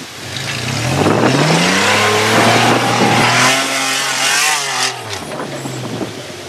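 Off-road 4x4's diesel engine revving: the engine note climbs over the first two seconds, holds high, then drops back about five seconds in.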